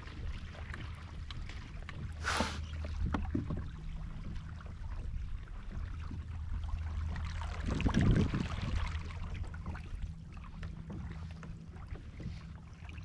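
Water lapping and trickling against a kayak hull on calm water, over a steady low rumble. There is a brief hissing splash about two seconds in and a heavier low thud around eight seconds.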